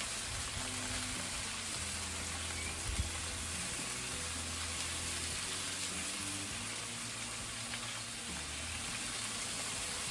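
Steady sizzling of pork tenderloin medallions and broccoli frying in hot fat on a gas grill's cast-iron plate and side-burner wok. One short knock about three seconds in.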